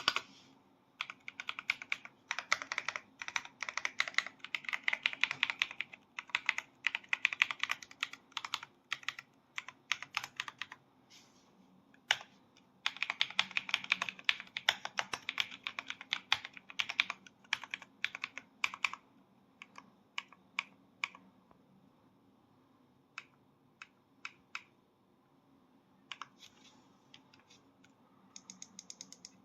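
Mechanical keyboard being typed on: two fast runs of clacking keystrokes, then slower scattered key presses with pauses in the last third.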